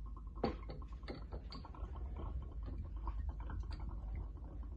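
Spiced rum pouring from a bottle's metal pour spout into a small shot glass: a thin trickling stream with small irregular ticks, over a steady low hum.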